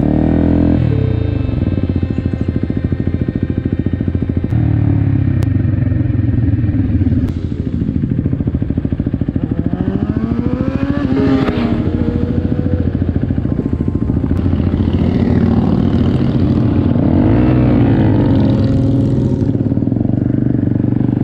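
Motorcycle engine running while riding, its pitch rising and falling again and again with throttle and gear changes.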